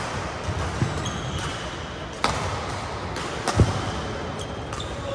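Badminton rally: rackets striking the shuttlecock in sharp cracks, the loudest about two and three and a half seconds in, with short squeaks of shoes on the court floor.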